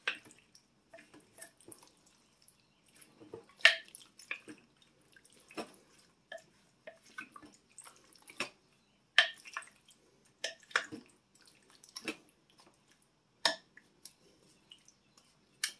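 Wooden spoon stirring a chunky kielbasa, potato and vegetable casserole in a slow-cooker crock: irregular clicks and knocks of the spoon against the crock, with soft wet sounds of the food being turned.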